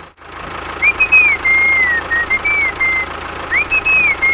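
An engine idling steadily, with a whistled tune of smooth, sliding notes over it in two short phrases.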